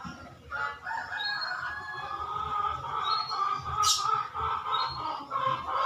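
Chicken calling in long, drawn-out squawks, with a sharp click about four seconds in.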